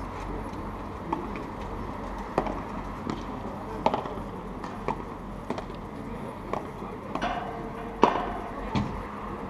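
Padel rally: the ball is struck by solid padel rackets and bounces around the court, about nine sharp pocks at irregular intervals of roughly a second, the loudest about eight seconds in.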